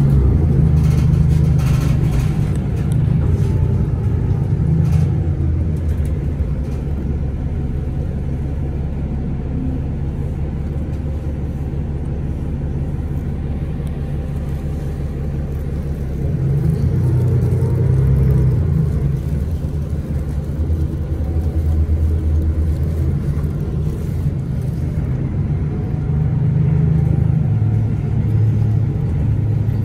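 Cummins ISL9 diesel engine of a 2011 Orion VII 3G transit bus running as the bus drives, its drone swelling and easing off with the throttle: loud at the start, quieter through the middle, then building again several times from about halfway on.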